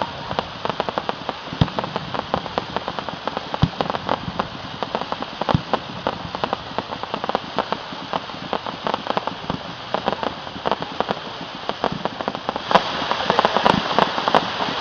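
Fireworks crackling densely, a rain-like patter of many small pops, with a few deeper bangs in the first six seconds. The crackle grows louder and thicker about thirteen seconds in.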